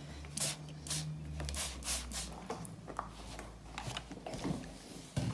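Hand trigger spray bottle squirting water onto a garment on the ironing board, several quick squirts in the first two seconds or so, followed by softer rustling of the cloth.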